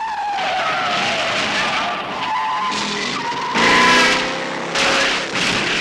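Cartoon sound effect of a car's tyres screeching as it skids at speed, loudest about four seconds in.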